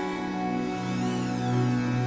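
Background music of held, sustained notes, with a high sweeping tone that rises and falls about a second in.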